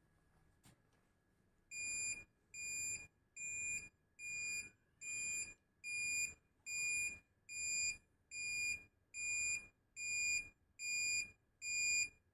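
Nowatech ZEEN-800 Plus electrofusion welding machine's buzzer giving about fourteen evenly spaced beeps, a little over one a second, starting about two seconds in. It signals that the fusion weld is finished and the cooling time has begun.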